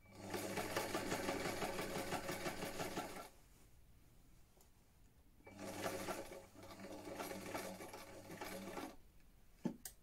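Vintage Brother electric sewing machine stitching a seam in two runs of about three seconds each, with a pause between: the motor hums under the fast, even clatter of the needle. A single sharp click comes near the end.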